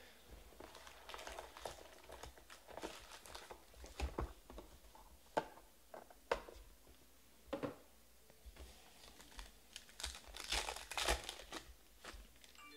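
Faint handling of a cardboard Panini Stars & Stripes baseball card box, with scattered taps and scrapes as its lid is opened and a pack is taken out. About ten seconds in, a foil card-pack wrapper crinkles and tears as it is peeled open.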